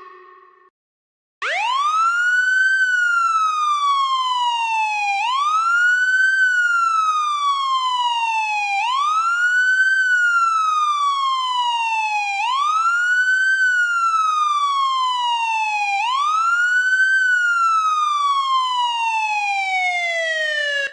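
Police siren wailing: each cycle rises quickly to a high pitch, then falls slowly, repeating about every three and a half seconds. It starts about a second and a half in, after the previous siren fades out, and runs five full cycles.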